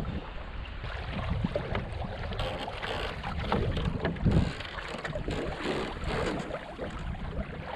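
Water splashing and lapping along the hull of a small wooden sailing kayak under way, with wind buffeting the microphone, and a louder gust a little past halfway.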